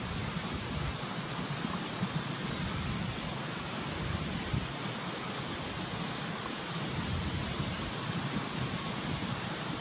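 Steady outdoor hiss with wind rumbling unevenly on the microphone.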